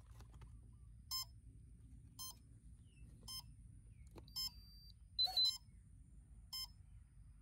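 Electronic speed controller beeping through the brushless outrunner motor of an RC plane just after its battery is plugged in: short beeps about once a second, with one brief, louder, higher beep about five seconds in.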